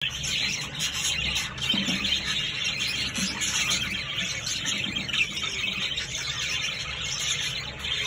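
Young green-cheeked conure calling with continuous harsh squawking.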